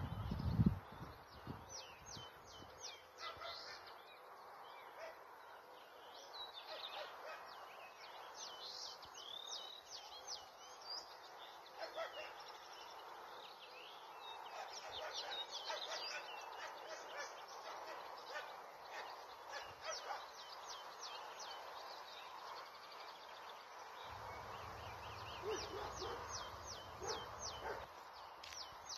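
Songbirds singing, with short high chirps and quick runs of notes throughout over a quiet rural background. A couple of low thumps come right at the start, and a faint low hum joins near the end.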